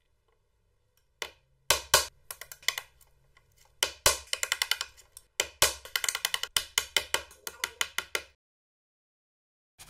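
A steel bench chisel struck over and over, chopping out the waste between dovetail pins in a hardwood board. The knocks are sharp and uneven, several a second, with wood chips splitting off. They stop suddenly about a second and a half before the end.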